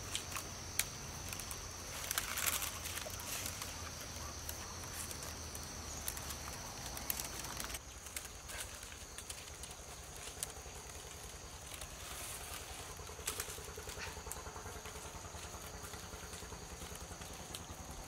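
Wild-vine strands rustling and clicking as they are woven by hand into a round basket base, over a steady high insect drone. The clicks come in scattered bursts, loudest about two and a half seconds in and again near thirteen seconds.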